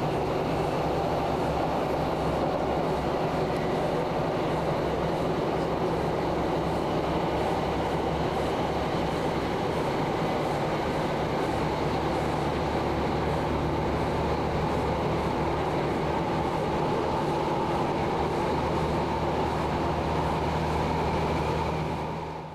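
Onboard running noise of a Class 150 diesel multiple unit at steady speed: the underfloor Cummins diesel engine's constant drone over wheel-on-rail rumble, fading out quickly at the very end.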